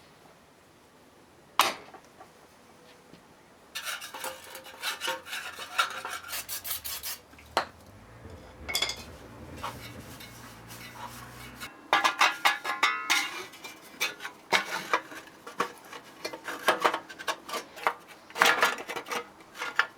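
Metal tools and engine parts clinking and scraping as they are handled during reassembly of a VW Beetle engine. A single knock comes near the start, then many short clinks and scrapes, busiest in the second half.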